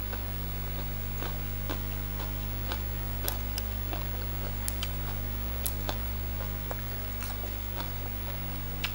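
Close-up eating sounds: chewing, with scattered sharp mouth clicks and snaps, then leaves of fresh lettuce being torn by hand near the end. A steady low hum runs underneath.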